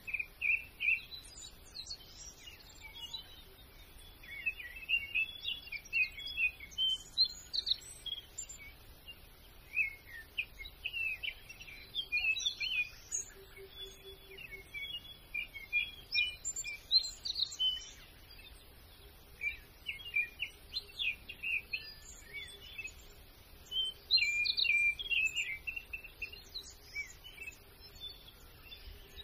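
Small songbirds chirping and singing, many short high calls and trills overlapping, coming and going throughout.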